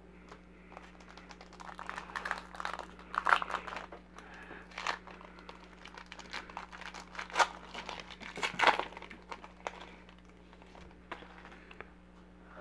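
Foil trading-card pack being torn open and its wrapper crinkled in the hands: a run of irregular crackles and rustles, loudest about three, seven and a half and eight and a half seconds in, dying away after about ten seconds.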